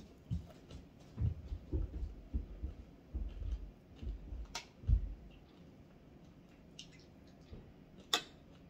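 Eating and tableware sounds: a run of soft, irregular low thuds through about the first five seconds, and two sharp clicks, one about four and a half seconds in and a louder one near the end.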